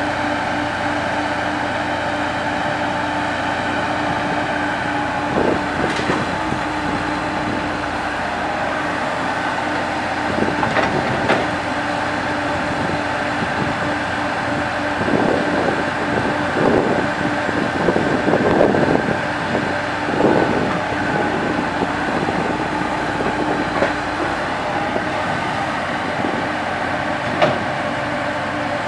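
Komatsu PC70 hydraulic excavator's diesel engine running steadily under work, with scattered knocks and a spell of clattering about halfway through, and one sharp click near the end.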